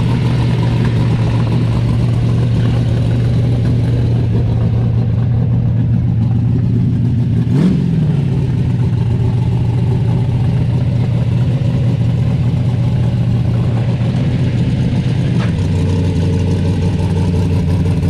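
Chevrolet Monte Carlo engine idling loudly with a steady, deep note. About seven and a half seconds in it gets one quick rev that rises and falls back to idle. Near the end the idle note steps down lower.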